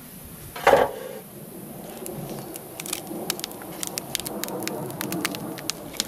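Lid of a Tetragonula carbonaria stingless native bee hive box being prised off: the resin and wax seal holding it crackles and tears in a run of sharp clicks, over a low buzz of bees. One louder knock about a second in.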